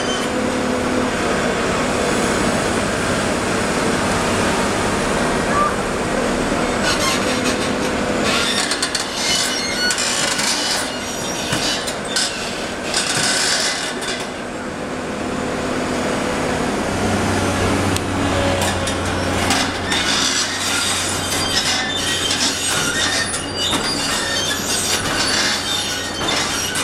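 Heavy construction machinery working, with a steady engine drone and repeated bursts of metallic scraping and squealing. A low engine hum sets in about two-thirds of the way through.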